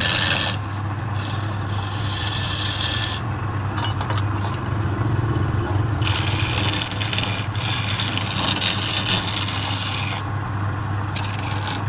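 Wood lathe running with a steady low hum while a hand-held turning chisel scrapes along the spinning wooden vase. The cutting comes in separate passes: brief at the start, about 1 to 3 seconds in, a longer one from about 6 to 10 seconds, and a short one near the end.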